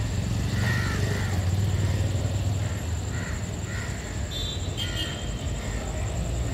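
Crows cawing several times in short calls over a steady low rumble of distant traffic.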